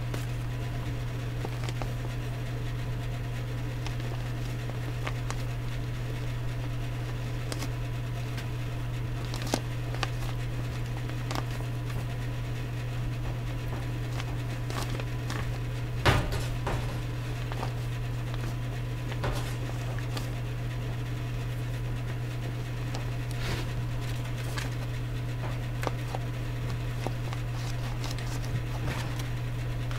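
Electrical cable being pushed by hand down a drilled hole in a wall's top plate: scattered light clicks and rustles of the cable, with one sharper knock about sixteen seconds in, over a steady low hum.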